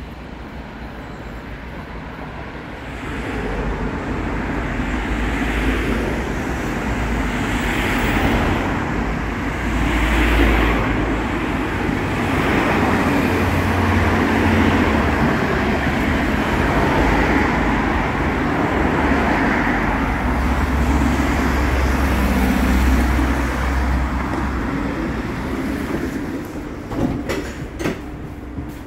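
A Cologne Stadtbahn light-rail tram pulls in alongside the platform: steady rumble of wheels on rails and running gear, growing louder about three seconds in and easing off near the end. A few sharp clicks follow.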